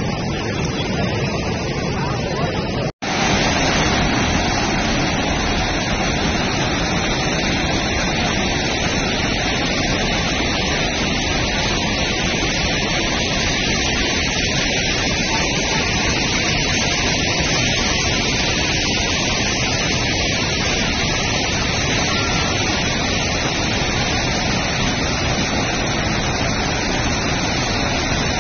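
Fast-flowing floodwater rushing in a steady, loud, unbroken wash of noise. It drops out for a split second about three seconds in and then carries on.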